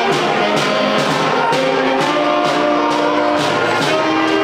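Middle school band of saxophones, trumpet, clarinets and flutes playing held notes over a steady drum beat of about two hits a second.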